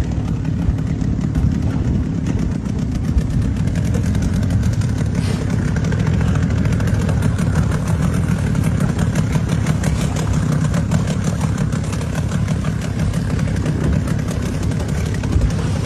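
Small motor engine running steadily at a constant speed, as of a boat's outboard motor.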